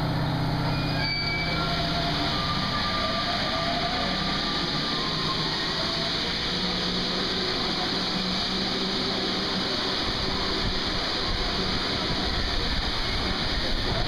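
Paris Métro train pulling out of an underground station and accelerating past: continuous rolling rumble and running noise of the train. A motor whine rises in pitch over the first few seconds.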